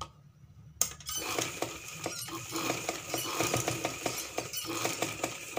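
Sewing machine stitching fabric: it starts with a click about a second in, runs steadily with rapid repeated needle strokes, and stops abruptly at the end.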